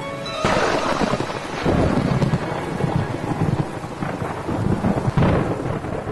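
Thunderstorm: a sudden thunderclap about half a second in, then rolling thunder with several further rumbles over rain.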